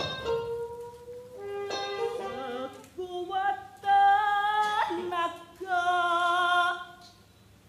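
A woman singing a string of long, held notes, some with a slight waver, opened by a sharp knock right at the start.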